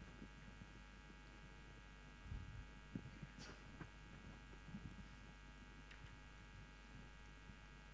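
Near silence: a steady low electrical hum, with a few faint knocks between about two and three and a half seconds in.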